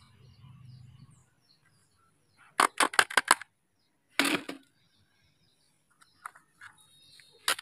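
Hard plastic toy vehicles clicking and clacking as they are handled: a quick run of sharp clicks about three seconds in, then a single knock a second later.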